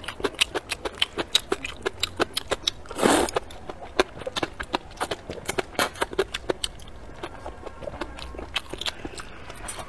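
Close-miked eating of noodles: many quick wet chewing clicks and mouth smacks, with one loud slurp of noodles about three seconds in. The clicks thin out in the last few seconds.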